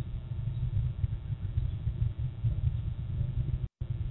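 Low, uneven rumbling noise on an outdoor webcam's microphone, flickering constantly, with a brief total dropout near the end.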